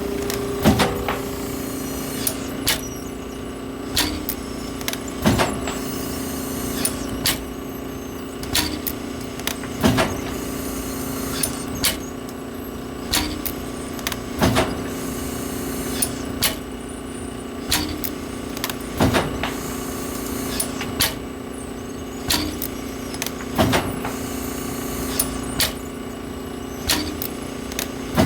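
Print-shop laminator running with a steady hum, with a sharp click about every second and a half.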